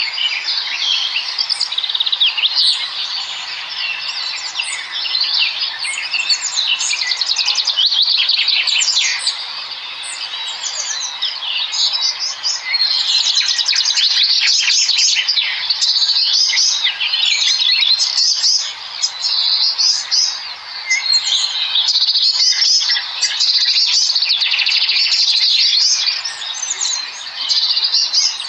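Many small birds chirping and chittering at once: a dense, unbroken chorus of high, rapid chirps and trills.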